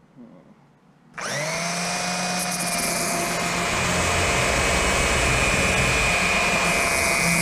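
Makita handheld band sander (narrow belt file) switched on about a second in, spinning up quickly and then running steadily with a high motor whine as its belt sands a fiberglass corner.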